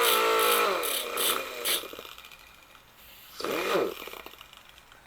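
Small hand grinder running in short bursts: the first whine holds briefly and winds down over the first two seconds, and a second quick spin-up and run-down comes about three and a half seconds in. It is grinding the raised edges off a chainsaw chain's dented drive links so they fit back into the bar groove.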